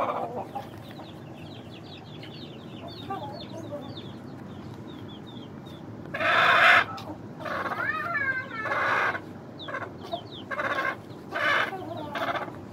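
Chicken calls: faint, quick high chirps in the first half, then about six loud, rough clucking calls in a row from about halfway through.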